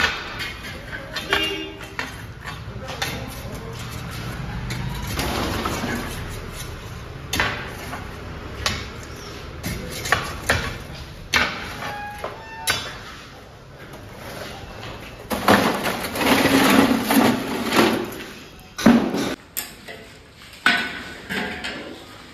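Repeated sharp clanks and knocks of metal cooking utensils, with a louder, busier stretch of clattering a little past the middle.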